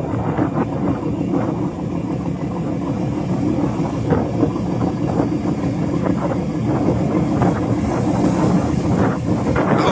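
Fishing boat engine running steadily with a deep drone, mixed with wind on the microphone and the rushing of sea water along the hulls.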